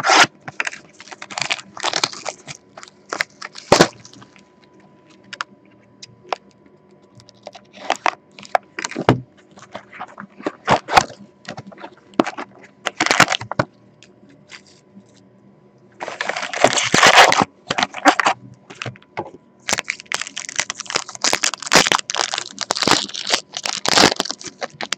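Plastic shrink wrap and cardboard packaging on a sealed box of trading cards crackling and tearing as the box is unwrapped and opened. It comes in short irregular bursts, with longer runs of steady crinkling about two-thirds of the way through and again near the end.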